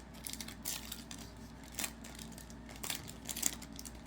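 Trading-card pack wrapper and cards being handled: irregular light crinkling and small clicks.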